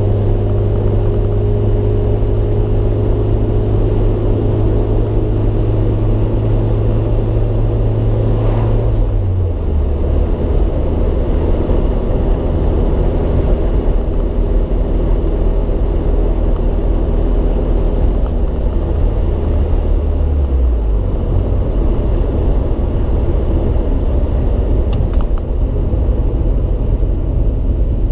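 Mitsubishi Lancer Evolution VIII's turbocharged 2.0-litre 4G63 inline-four running off boost at light load, heard from inside the cabin over steady road noise. The engine note drops in two steps, about 9 seconds in and again about 20 seconds in.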